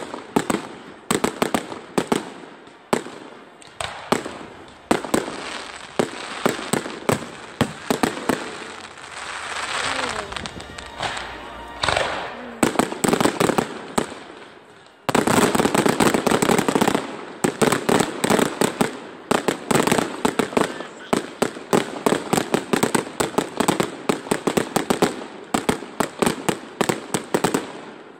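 Fireworks display: aerial shells bursting in a rapid string of bangs and crackles. A short lull comes just before halfway, followed by a dense, loud run of crackling.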